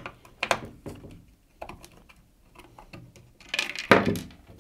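A screwdriver turning out the small screw that holds the worn line-cutting blade on a Bosch grass trimmer's guard: a run of small clicks and scrapes, with a louder scrape about three and a half seconds in as the screw comes free.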